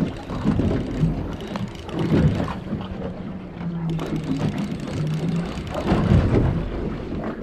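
Steady hum of a boat motor with wind and water noise on the microphone, and indistinct voices now and then.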